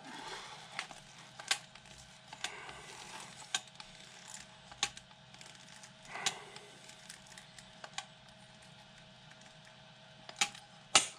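Dispensing gun pumping chemical anchor resin from a cartridge through a mixing nozzle into drilled holes: a string of irregular sharp clicks from the gun's trigger, with a few softer noisy stretches in between.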